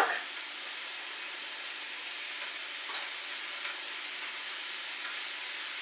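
Steady sizzling of bell peppers and spring onions frying in oil in a pan, with a couple of faint clicks about three seconds in.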